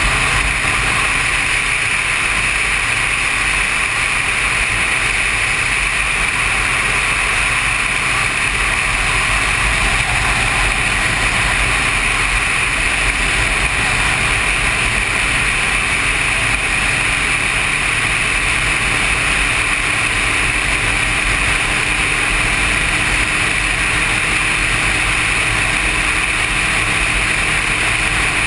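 Sport motorcycle riding at a steady speed: continuous engine and wind-and-road noise that holds even throughout, with no shifts or revving.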